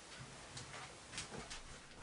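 A few faint, short clicks over quiet room noise.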